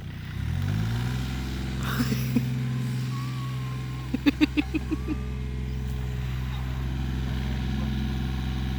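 Excavator engine speeding up in the first second, then running steadily at higher revs, with a few knocks about two seconds in and a quick run of sharp knocks about four seconds in.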